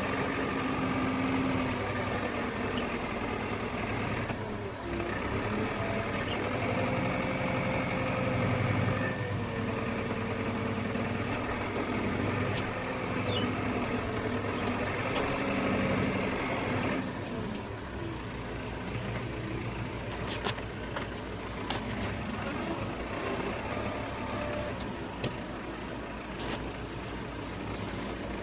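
TL100 tractor engine running, its pitch rising and falling for most of the first two-thirds, then dropping to a quieter, steady idle with a few light clicks.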